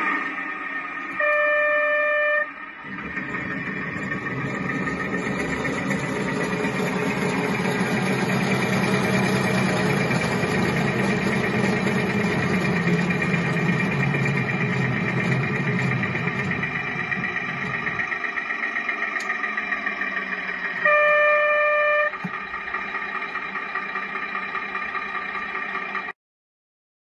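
The electronic sound system of a 5-inch gauge Maxitrak Brush 0-4-0 diesel shunter model, playing through its onboard speaker. A horn blast of about a second is followed by the simulated diesel engine note, which builds up for some seconds and then drops back. A second horn blast comes about 21 seconds in, and the sound cuts off abruptly near the end.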